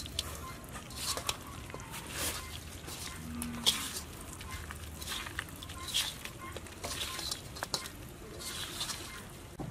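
Hands squishing and rubbing a crumbly spice and coconut mixture into whole raw quail in a wok: irregular wet, crackly mixing strokes with a few sharper clicks.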